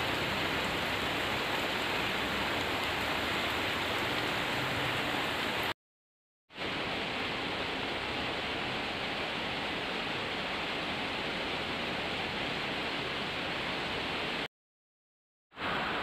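Steady rain falling, an even hiss. It cuts to complete silence twice for about a second, once about six seconds in and again near the end.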